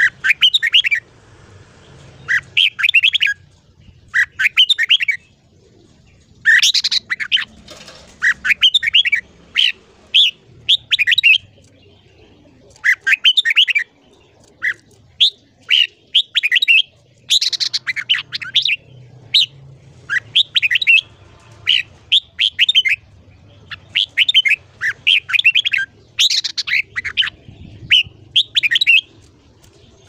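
Red-whiskered bulbul singing: short, loud phrases of quick whistled notes, one after another every second or two with brief pauses between them.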